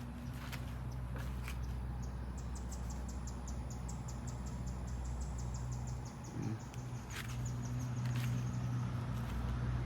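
A steady low hum, with an insect chirping in a fast, even train of high ticks, about four a second, from about two seconds in for around five seconds. A couple of sharp taps, like footsteps, come near the end.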